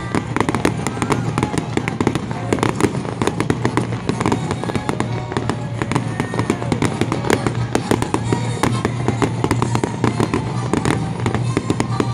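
Aerial fireworks shells bursting in a dense, continuous run of bangs and crackles.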